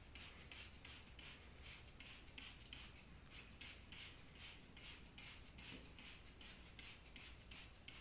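Hand trigger spray bottle squirting water in quick repeated pumps, several a second, each a short faint hiss. It is wetting a concrete surface so the mortar will adhere.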